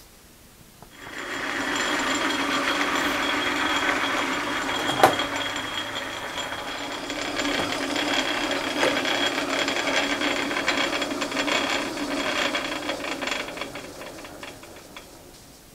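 Metal lathe running with its three-jaw chuck spinning: the machine starts about a second in, runs steadily with one sharp click partway through, and winds down near the end.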